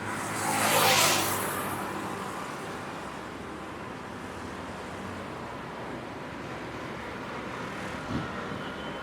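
Roadside traffic on a highway: a vehicle passes close by about a second in, its noise swelling and fading, over a steady background of traffic. A short low thump comes near the end.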